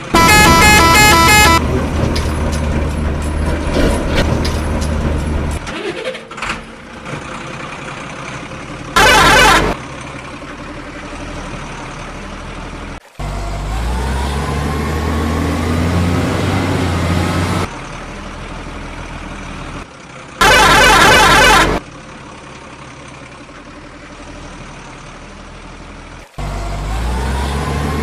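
Truck engine running steadily, with three loud horn blasts: one at the start, one about nine seconds in and a longer one about twenty seconds in.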